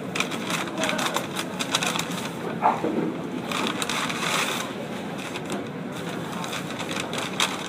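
A rapid, irregular run of small clicks and clattering over steady background noise, densest in the first four seconds or so, with one more sharp click near the end.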